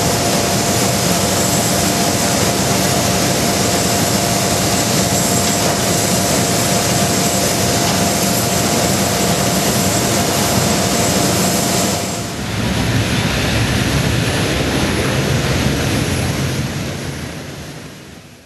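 Jet aircraft engines running: a loud steady rush with a steady whine over it. About twelve seconds in the whine stops and the sound settles into a lower rumble, which fades out near the end.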